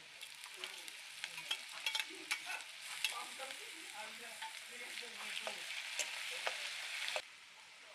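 Sliced onion and chilli sizzling in hot oil in a wok, with a metal spatula stirring and scraping against the pan in sharp clicks and scrapes. The sizzling stops abruptly about seven seconds in.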